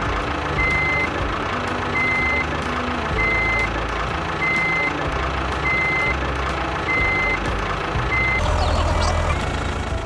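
A vehicle reversing alarm beeping about once every 1.2 seconds over a low engine running, the sound laid on a toy tractor moving off. The beeps stop about eight seconds in and the engine grows louder.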